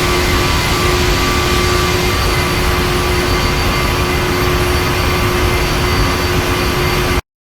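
Steady jet engine and airflow noise of a Boeing 737-900 with its CFM56-7B turbofans, heard from inside the cabin, with a constant engine hum and whine over the rush. It cuts off abruptly about seven seconds in.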